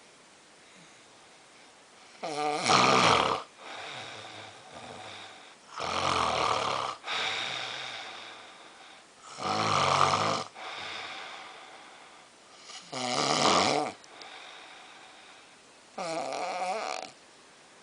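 A person snoring loudly: five loud snores, one about every three and a half seconds, with a quieter breath after each.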